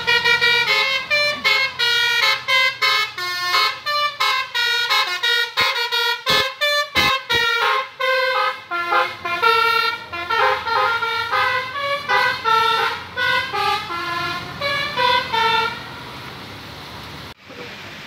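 Bus telolet horn of the Basuri type playing a fast tune of short, stepping notes. It runs for about sixteen seconds, then stops.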